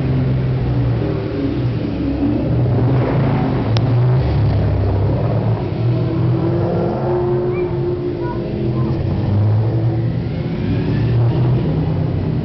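Several race-prepared sports car engines running at low revs as the cars roll slowly past one after another, with the revs rising as one car pulls away about halfway through.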